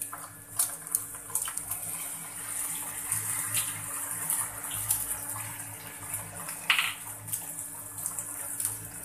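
An egg sizzling as it fries in hot oil in a non-stick pan: a steady hiss with scattered small pops and crackles.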